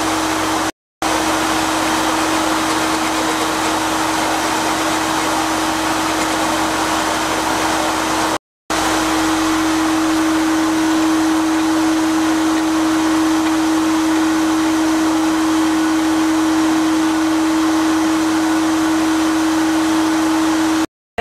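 Sandblasting cabinet in use: a steady, loud hiss of compressed air and abrasive from the blast gun, with a steady hum underneath. It stops dead for a moment twice.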